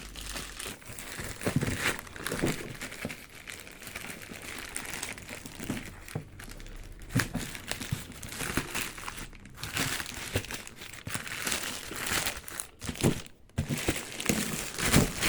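Packaging crinkling and tearing in irregular bursts as a parcel is unwrapped by hand.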